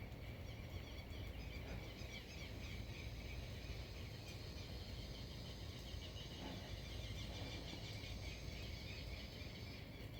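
Faint outdoor ambience: many small birds chirping continuously over a low rumble of background noise.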